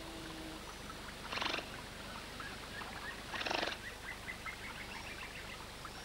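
Giant otter giving two short, rough, pulsed calls about two seconds apart as it investigates an anaconda.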